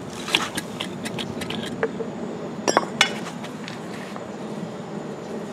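A few sharp metallic clinks and knocks from a concrete slab and its bolted steel bracket plates and threaded rods being tipped over, the loudest ones close together about three seconds in.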